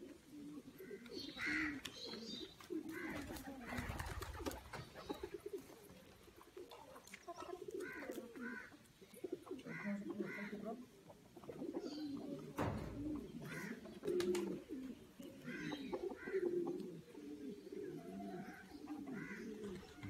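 Fancy pigeons cooing over and over, the low coos of several birds overlapping, with two dull bumps.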